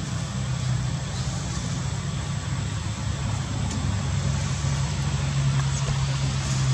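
An engine running steadily, a low, even hum.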